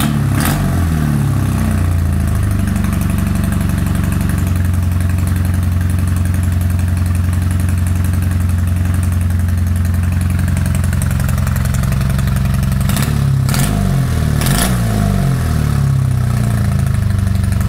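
Honda V65 Sabre's 1100cc V4 engine running on its first startup after a rebuild, idling roughly because it is not firing on all cylinders. The throttle is blipped just after the start and again about 13 seconds in, the revs rising and falling with a few sharp pops.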